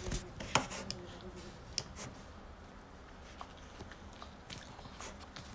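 Toy figures handled by hand: light rubbing and scratching with a few soft clicks and taps, most of them in the first two seconds.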